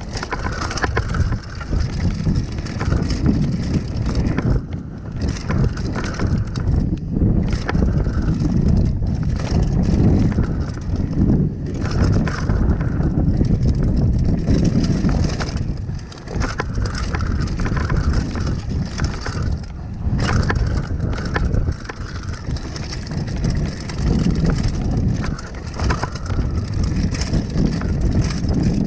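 Mountain bike ridden fast down a dirt trail: a continuous low rumble of tyres on dirt and wind on the microphone, with frequent short rattles and knocks of the bike over bumps.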